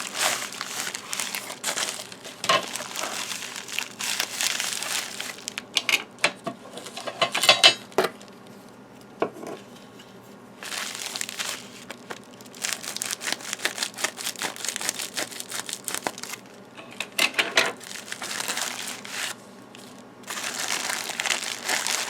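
Packaging crinkling and tearing as a parcel is unwrapped by hand, in irregular bursts with a couple of short pauses.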